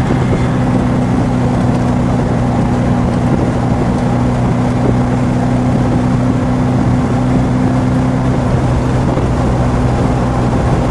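Fiat Abarth 1000 OT Spider's tuned inline four-cylinder engine running at a steady cruise while driving, heard from the open cockpit with wind and road noise over it.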